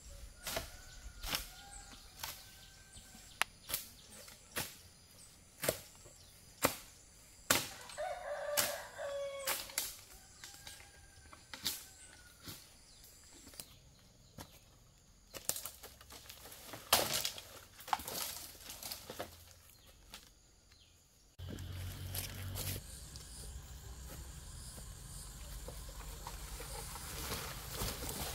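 A run of sharp knocks at irregular intervals, roughly one a second, with short gliding bird calls between them and one louder call about 8 seconds in. About three quarters of the way through, the knocks give way to a steady rustling hiss.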